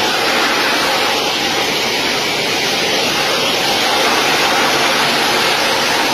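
Loud, steady rush of jet engine noise and streaming air on the phone's microphone as a military transport jet rolls along the runway.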